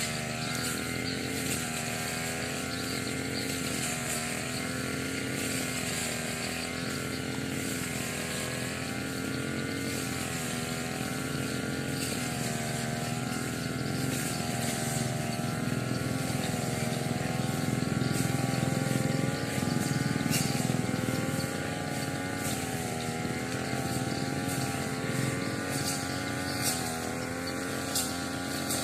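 Small two-stroke engine of a brush cutter running at high speed while cutting grass, its pitch wavering up and down as the load changes, growing louder for a few seconds about two-thirds of the way through. A couple of short sharp clicks near the end.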